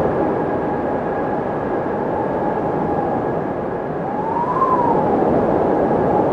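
Windmill turning in the wind: a steady rushing whoosh under a thin whine that swells, rises in pitch and falls back once about four to five seconds in.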